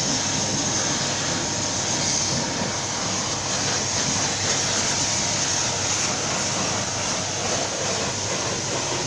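High-pressure washer spraying water onto a truck: a steady hiss that holds unchanged throughout.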